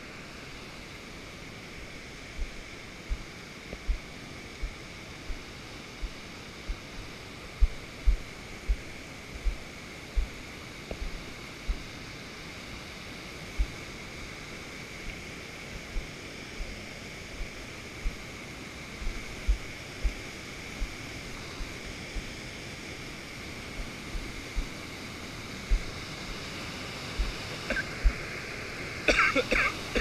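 Steady rush of waterfall water, with dull low thumps at a walking pace of roughly one to two a second from footsteps jolting a body-worn camera.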